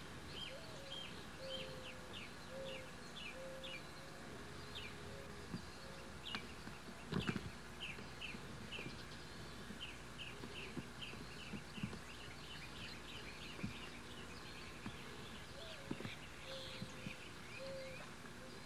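Outdoor ambience of birds chirping: quick series of short, high chirps repeating a few times a second, with some lower short notes. A few scattered knocks, the loudest about seven seconds in.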